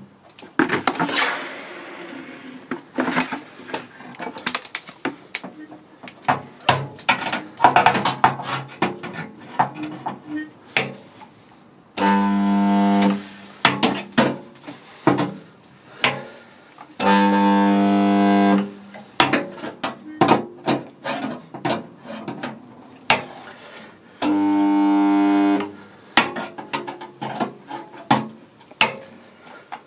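Handheld resistance spot welder making welds on car body steel: three steady, low buzzes of about a second and a half each, starting and stopping sharply, with a fourth beginning right at the end. Irregular clicks and metal clanks fill the gaps, densest in the first dozen seconds, as the electrode arms are set on the panel.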